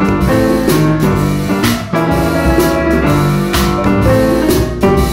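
Instrumental background music: piano-like chords over a drum kit, with a sharp drum or cymbal hit about once a second.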